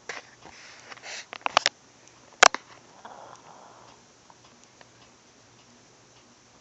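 Sleeping Chihuahua snoring in short, hissy breaths. Three quick clicks come about a second and a half in, and one sharp, louder click follows about two and a half seconds in.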